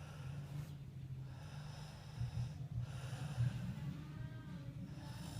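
A man snoring in slow, regular breaths about two seconds apart, each a rasping, snorting breath over a low rattle.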